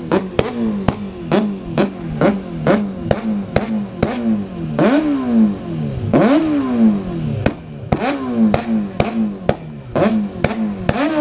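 Motorcycle engine revved over and over in sharp throttle blips, about two or three a second, the revs falling away after each, with two longer rev swells in the middle.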